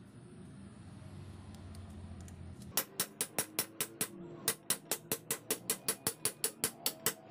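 Ratchet wrench clicking quickly and evenly, about five clicks a second with one short pause, as it turns down a screw-press tool pressing the spindle into the angle grinder's gear housing. The clicks start about three seconds in.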